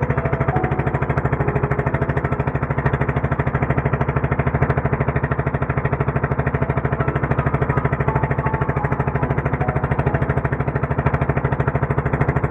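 Gasoline engine of a small motorized fishing boat running steadily under way, with a rapid, even pulse.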